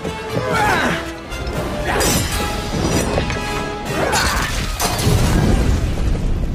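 Animated film soundtrack: music mixed with loud crashing and shattering effects, and tones that sweep up and back down three times; a heavier low rumble builds near the end.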